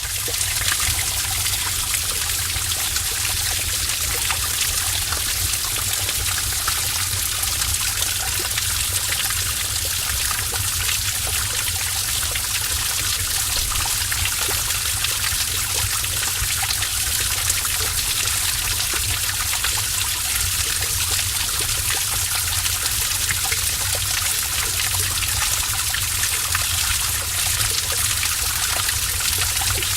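A stream of water running and trickling in a cave: a steady, even rush of water with a low rumble underneath.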